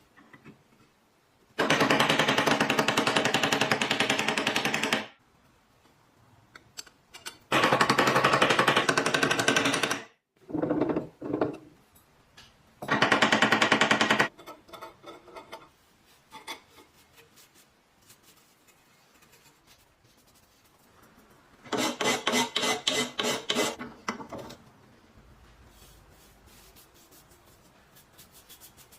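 A handheld power tool run in five bursts of one to three and a half seconds each, with a fast rattling pulse, and quiet scrapes between the bursts.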